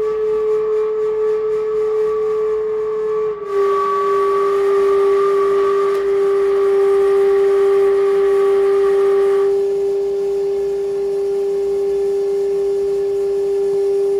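Steady electronic drone tone from a live improvised electronic-sound setup. Its pitch drops slightly about three and a half seconds in, as a hiss joins it that cuts off suddenly about nine and a half seconds in, leaving the drone with a fainter higher tone above it.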